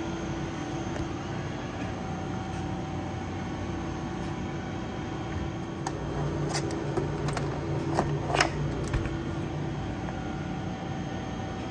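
Steady mechanical hum of a refrigerated vending machine. Between about six and nine seconds in come a few sharp clicks and knocks as the pickup door is opened and the plastic-packed bento is taken out.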